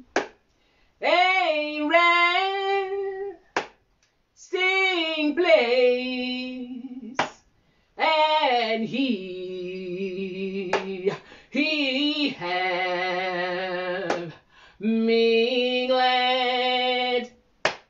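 A woman singing a slow, near a cappella song in long held notes. Between phrases there is a single sharp stroke on a washboard, about every three and a half seconds.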